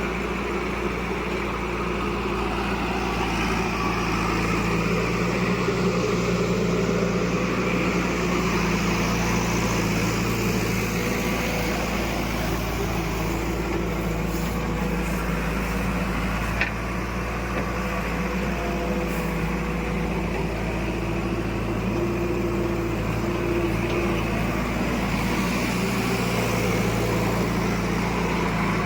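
Diesel engine of heavy machinery running steadily, with one short sharp click a little past halfway.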